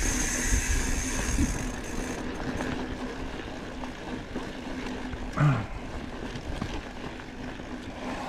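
Mountain bike rolling over slickrock: steady rumble of the tyres and wind on the microphone, with a steady high buzz from the bike that stops about two seconds in. A short, loud sound falling in pitch comes about five seconds in.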